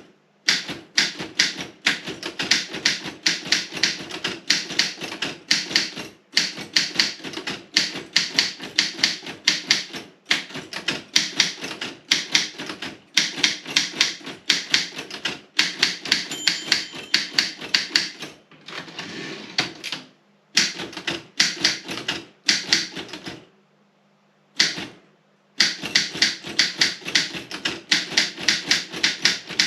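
Robotron 20 wide-carriage typewriter being typed on in quick runs of keystrokes, several sharp clacks a second, broken by short pauses.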